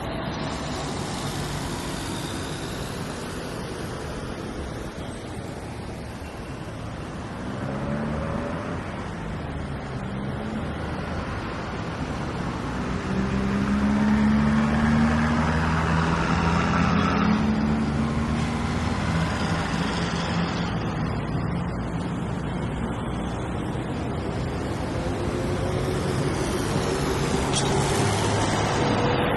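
Busy road traffic: a continuous wash of vehicles passing, with one engine's hum growing loudest about halfway through, and a single sharp click near the end.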